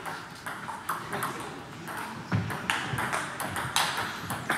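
Table tennis balls clicking sharply on a table and bats: a few evenly spaced bounces about twice a second at first, then scattered clicks, with a few dull low thuds in the middle.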